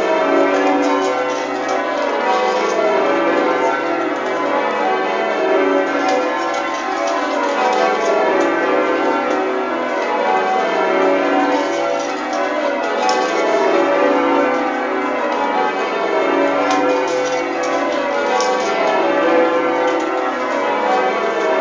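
Change ringing on a ring of twelve tower bells in B, the tenor weighing 42 cwt 2 qr 25 lb. The bells are struck in quick succession in rows that each step down in pitch, a new row about every two seconds.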